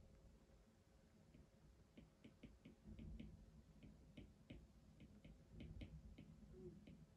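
Near silence with faint, irregular light clicks and taps, some in quick clusters, over a low steady room hum.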